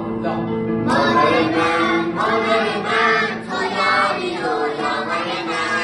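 A group of young children singing a song together, the singing coming in strongly about a second in.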